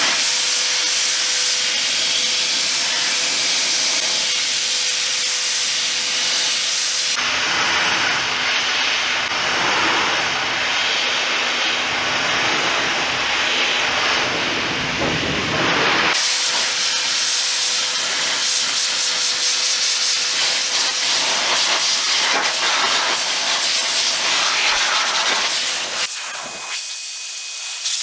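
Adam's Polishes Air Cannon car dryer blowing air through its nozzle onto a wet tire sidewall, drying it touch-free: a steady rushing hiss with a steady motor whine beneath it. For a stretch in the middle the whine sits lower, and the hiss drops off a little near the end.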